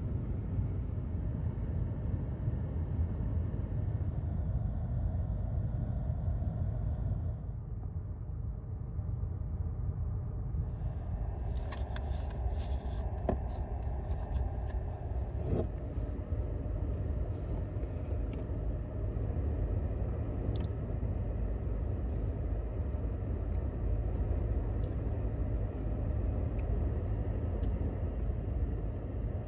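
Steady low rumble of a pickup truck idling, heard from inside the cab while it warms up on a very cold morning. From about 12 to 19 seconds in, short clicks and rustles of things being handled sit on top of it.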